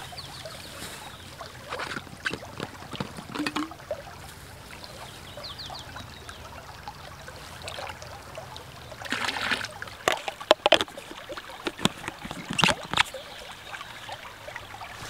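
Water trickling as a plastic bottle is filled in a shallow stream, with a burst of splashing a little past the middle. Then come sharp clicks and knocks as the bottle and its cap are handled and screwed shut.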